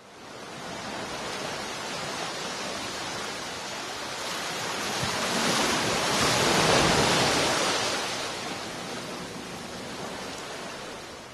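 A steady rushing noise with no pitch, swelling to its loudest about six to seven seconds in and then easing back.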